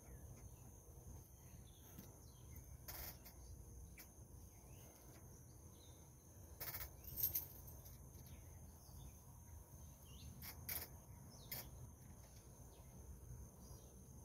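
Faint rural outdoor ambience: a steady high-pitched drone of insects over a low rumble, with a few short sharp sounds, around four of them, spread through it.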